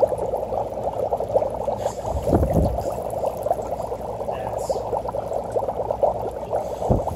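Dry ice in water in a stainless steel bowl bubbling hard, a steady dense fizzing gurgle of many small pops. A deeper low gurgle rises about two and a half seconds in, and a low thump comes just before the end.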